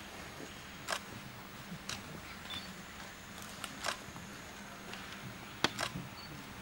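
About five sharp, short clicks at irregular intervals, two of them in quick succession near the end, over a faint steady low hum.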